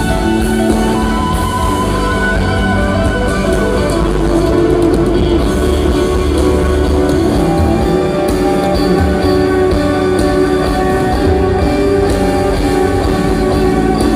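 Live band playing a steady instrumental passage with electric guitar, keyboards and drum kit, with no singing.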